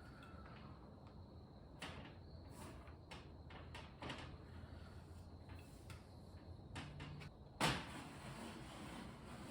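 Faint handling noises: a scattering of light clicks and knocks with rustling, and one sharper knock about three-quarters of the way through.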